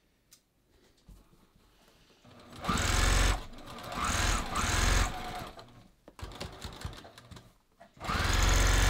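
Domestic sewing machine stitching elastic onto stretch knit in stop-start bursts: two short runs about three seconds in, then a steady run starting near the end, the motor whine rising as each run gets going. Faint fabric handling in the pauses.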